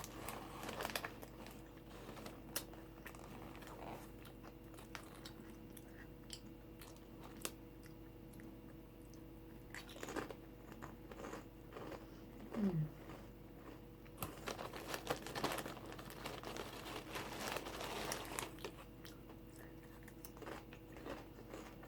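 Close-up chewing of thin, bubbly crisps, crunching in short bursts with pauses between mouthfuls; the crunching is busiest in the second half.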